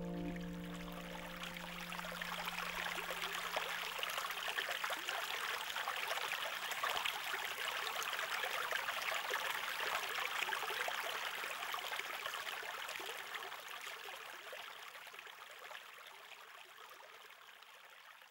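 Water falling from a fountain spout into a koi pond: a steady splashing trickle that fades out over the last several seconds. The last notes of music die away about a second in.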